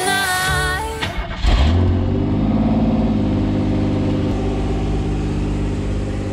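The last second of an electronic music sting. Then, about a second and a half in, a Pontiac Fiero GT's V6 engine starts suddenly, flares up briefly and settles into a steady idle.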